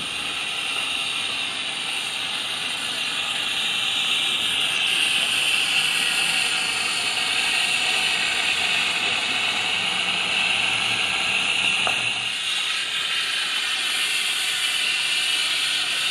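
G-scale model steam locomotive running with its passenger cars: a steady hiss with a light mechanical ratcheting of its running gear and wheels on the track, and a brief click about twelve seconds in.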